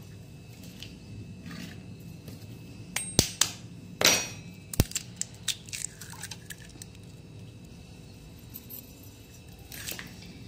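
A raw egg cracked on a stainless steel bowl: several sharp taps and cracks of shell about three to six seconds in, with one more click near the end.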